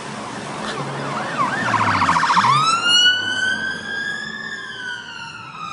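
Police car siren: a rapid warble about two seconds in gives way to a long wail that rises, holds and then slowly falls, with car engines running underneath.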